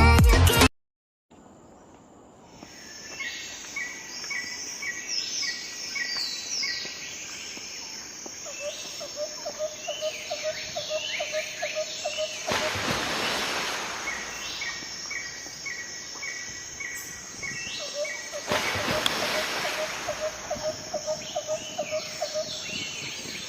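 Forest ambience: several birds calling over and over, with runs of quick repeated chirps and falling whistled notes, and insects in the background. Twice, about halfway through and again a few seconds later, a loud hissing rush lasting a second or two rises over the calls.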